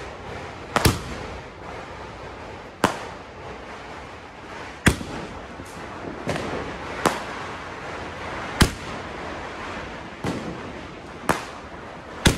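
Multi-shot aerial firework (a 'sky shot' cake) firing shells into the sky: sharp bangs roughly every two seconds, about seven loud ones and a couple of softer ones, over a steady crackle and hiss.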